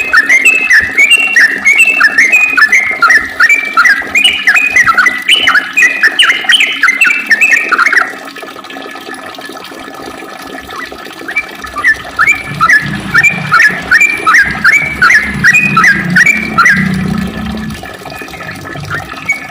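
A sooty-headed bulbul (trucukan) singing a long, rapid run of repeated chirping notes. It breaks off after about eight seconds and starts again a few seconds later, with a low hum underneath the second run.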